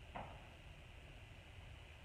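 Near silence: church room tone, with one brief faint knock or click just after the start.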